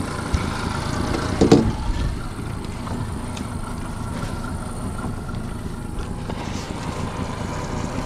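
Honda four-stroke outboard motor running slowly at trolling speed, a steady low drone with wind on the microphone. A brief clatter of knocks about a second and a half in.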